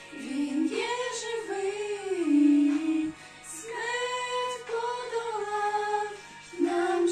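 A small group of women singing a slow song together in held, gliding notes, the phrases broken by short breath pauses about three seconds in and again near the end.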